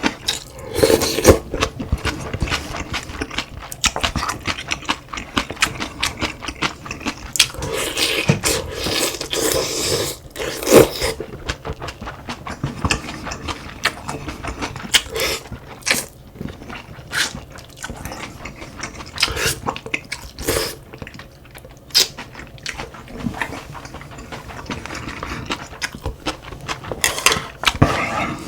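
A person eating close to the microphone: chewing, with many sharp clicks and short noisy bursts.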